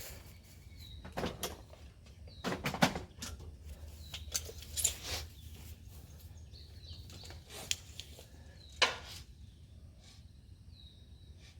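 A few scattered clicks and knocks from a metal tape measure being pulled out, handled and locked while measuring a post hole, with faint bird chirps now and then.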